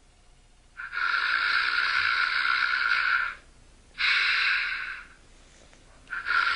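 Exaggerated mock snoring: a long, hissy snore starting about a second in, a shorter one at about four seconds, and another starting just before the end.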